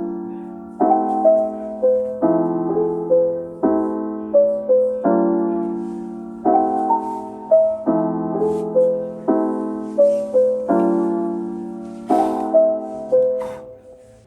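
Soft background piano music: a slow, repeating pattern of struck chords and notes, each ringing away, fading out near the end.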